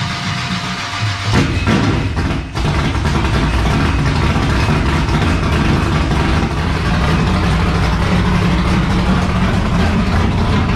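Dirt-track super truck's race engine running as the truck is driven out of the garage, stepping up in loudness about a second in and then holding a steady low rumble.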